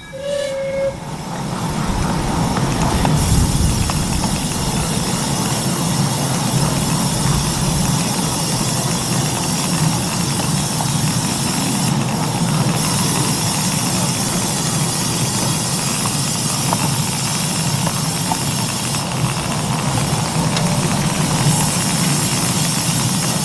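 Miniature railway train running along the track, a steady rumble with hiss.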